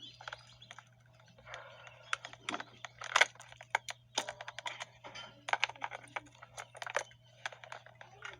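Irregular small clicks and rattles of plastic and metal as the airbag's connector clips are worked loose with needle-nose pliers and the airbag module comes free of the steering wheel. The sharpest click comes about three seconds in.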